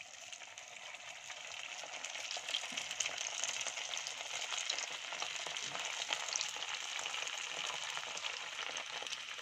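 Sabudana vadas deep-frying in hot oil: a steady sizzle full of fine crackles, swelling over the first two or three seconds and then holding.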